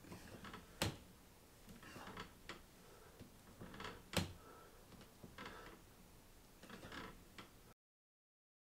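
Doorway pull-up bar knocking sharply twice, about three seconds apart, under a man doing pull-ups, with softer scuffing sounds between the knocks. The sound cuts off to silence near the end.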